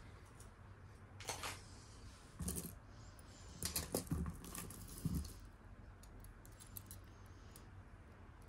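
Faint, scattered clicks and light clinks of metal jewelry pieces being handled and set down on a table, a handful of them in the first five seconds, a few with a dull tap.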